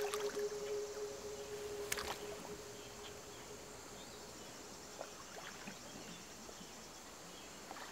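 A held note of film-score music fades out over the first two seconds or so, leaving faint river ambience with a few soft splashes and sloshing of water around people wading.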